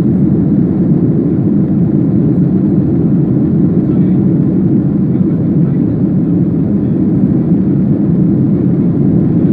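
Steady cabin roar of a Boeing 737-800 in flight, its CFM56-7B engines and the airflow heard from inside the cabin as a deep, even rumble.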